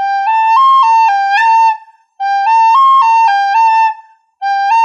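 Soprano recorder playing a short stepwise phrase of sustained notes: G, A, high C, back to A, G and ending on A. The phrase is played three times, each time without a break, with short pauses between.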